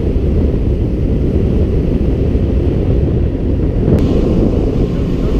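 Wind buffeting the microphone of a camera on a moving speedboat, a steady rumble with the boat's motor running underneath.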